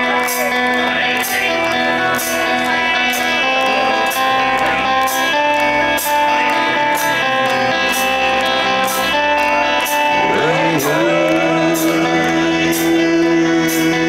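Gothic metal band playing live through the PA, with sustained guitar chords changing every second or two over a steady beat of sharp hits. About ten seconds in, a pitch swoops down and back up into a long held note.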